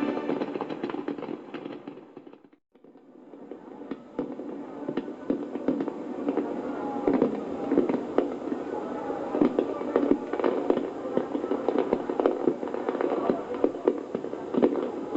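Music fades out over the first two seconds or so, then fireworks go off: a dense run of sharp pops and crackles that builds and grows louder.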